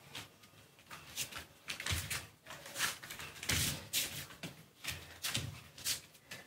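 A run of irregular knocks and thumps, about eight or nine of them, the loudest around the middle.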